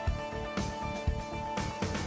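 Instrumental background music with a steady beat of about two thumps a second under sustained notes.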